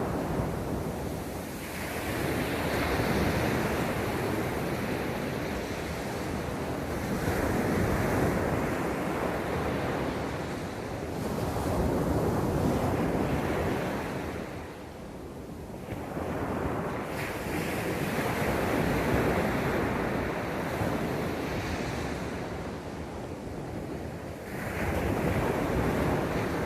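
Sea waves breaking and washing up the beach, the surf swelling and ebbing every five seconds or so.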